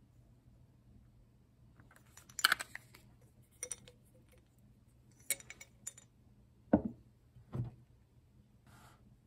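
Hard kitchenware clinking and knocking a few times, then two duller knocks near the end, as something is handled and set down.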